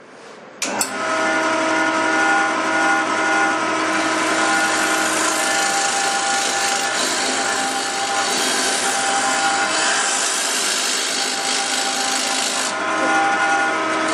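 Bowl gouge cutting into the face of a wooden bowl blank spinning on a wood lathe, hollowing out the inside of the bowl: a steady, rough scraping hiss over the lathe's steady tones. It begins suddenly about a second in.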